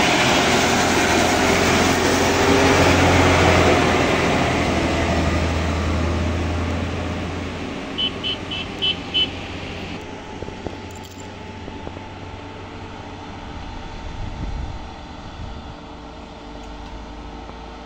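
Mitsubishi Fuso dump truck's diesel engine labouring uphill at close range, a loud low drone that fades away over the first seven seconds or so. About eight seconds in come five short, high whistle blasts.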